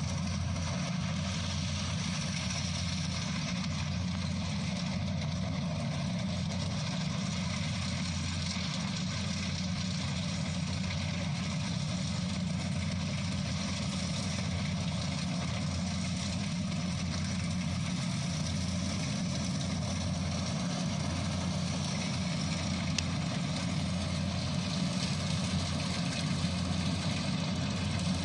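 Kubota combine harvester's diesel engine running steadily as the machine harvests rice, a continuous low drone with machinery noise over it, growing a little louder near the end.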